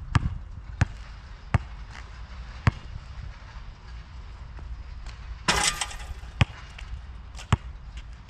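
Molten GB3800 basketball bouncing on an asphalt court, four single sharp bounces spaced unevenly over the first few seconds. About five and a half seconds in, a louder, longer clattering noise as the free throw meets the hoop, followed by two more bounces of the ball on the court.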